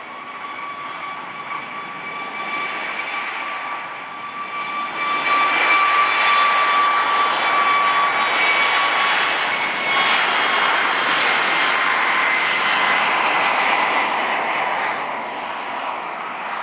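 Boeing 737 MAX 8's CFM LEAP-1B turbofan engines running as the jet taxis past: a steady two-note whine over jet rush. The sound grows louder about five seconds in and fades near the end as the aircraft moves away.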